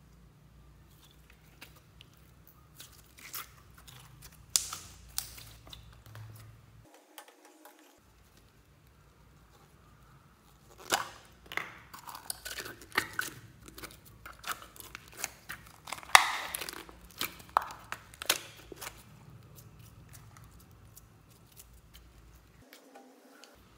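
Slime being stretched, squeezed and poured from a plastic bottle into a plastic tub: wet, sticky crackles, pops and clicks, scattered at first and thickest about halfway through.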